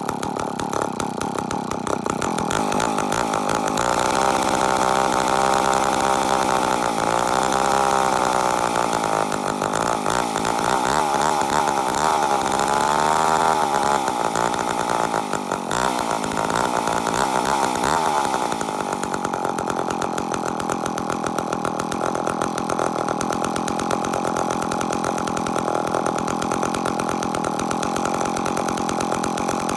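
ProMac 1010 two-stroke chainsaw running hard, its engine pitch dipping and rising as it works. About 18 seconds in it drops back to a steady idle.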